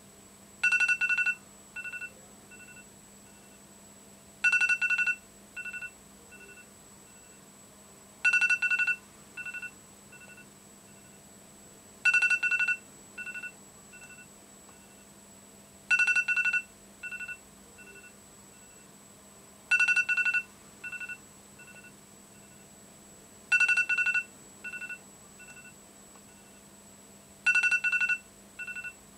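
An electronic ringtone rings eight times, about every four seconds. Each ring is a short, bright two-part tone followed by a few fading echoes. A steady low hum runs underneath.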